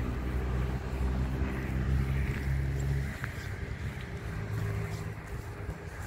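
A car engine idling with a steady low hum, which drops in level about halfway through.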